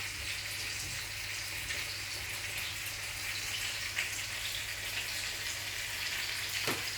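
Steady hiss-like background noise over a low steady hum, with a few faint ticks.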